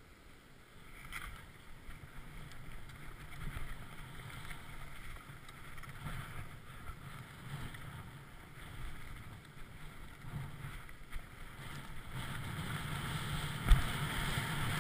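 Skis sliding downhill over cut-up powder snow, a steady rushing noise with wind on the camera microphone. It gets louder near the end, with a sharp thump about fourteen seconds in.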